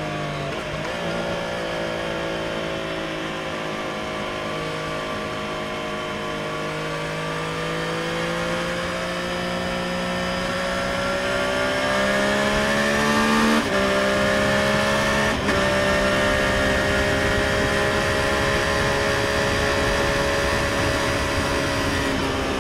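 Triumph Street Triple RS's 765 cc inline three-cylinder engine on the stock exhaust, heard from the saddle under way with wind and road noise. The engine note holds fairly steady, then climbs gradually and gets louder, with two quick gear changes a little past halfway. It then runs at steady revs until it starts to ease off at the very end.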